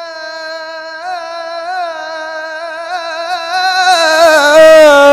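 Quran reciter in melodic tilawah style holding one long, high sung note on the end of a word. The note wavers with small ornaments and swells louder about four seconds in.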